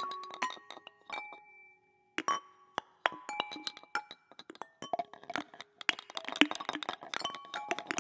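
Improvised music on handheld found-object instruments (lydes), layered from several separately recorded takes: scattered clinks and taps, each ringing briefly at its own pitch. There is a short pause about two seconds in, and the taps grow denser toward the end.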